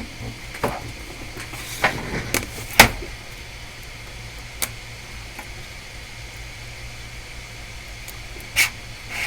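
Parts being handled on a workbench while a display is hooked up to a laptop logic board: a handful of sharp clicks and taps, the loudest about three seconds in and a last one near the end, over a steady low hum.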